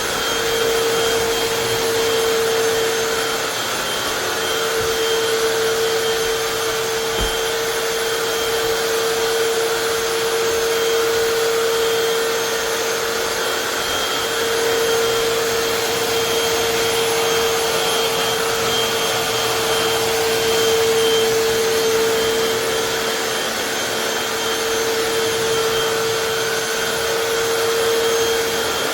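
Hoover FloorMate Deluxe hard floor cleaner running steadily: a constant motor hum with a strong mid-pitched tone that wavers and dips briefly a few times.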